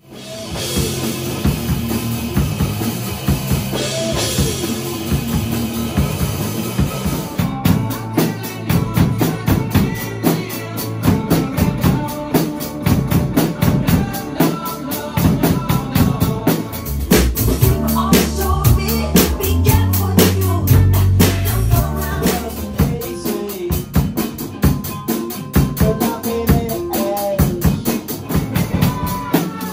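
Drum kit played to a beat, bass drum, snare and cymbals, over a backing song with a bass line; about seven seconds in the playing turns to a fast, steady stream of cymbal strokes.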